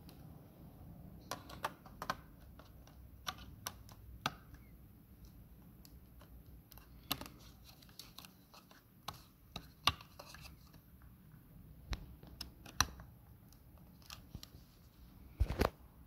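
Irregular sharp clicks and taps from a 2.5-inch drive and its bracket being handled in an HP ProBook 430 G3 laptop's drive bay, with a louder cluster of knocks near the end.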